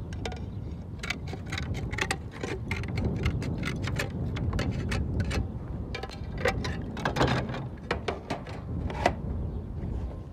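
Hand slate cutter snipping a roofing slate, a run of sharp, irregular clicks and snaps a few times a second as the edge is trimmed to a round shape. A low steady rumble sits underneath.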